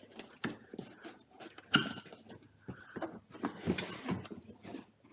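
Packaging being handled: irregular rustling, crinkling and knocking of boxes and wrapping as items are taken out, with one louder knock a little under two seconds in.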